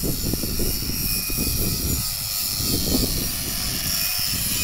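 Electric angle grinder sanding a metal beach-umbrella pole down for painting, a steady high whine, with wind buffeting the microphone.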